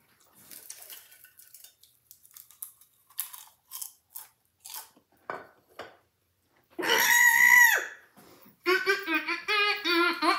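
Crunching of popcorn, a dozen or so short crisp crunches over the first six seconds. Then a woman's loud, drawn-out cry at about 7 s, followed from about 9 s by a quick run of rhythmic wordless vocal sounds, her reaction to the heat of habanero popcorn.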